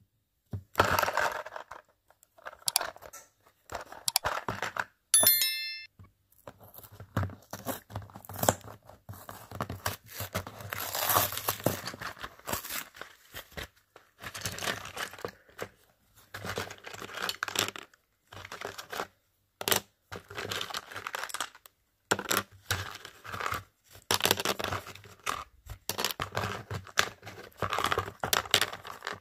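Lego minifigure blind bags being torn open and crumpled by hand, in repeated rustling bursts, with small plastic parts clicking as they are handled. A short squeak about five seconds in.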